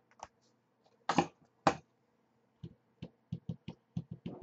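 Computer keyboard keys clicking in short, irregular taps, about three a second in the second half, after two brief louder noisy bursts about a second in.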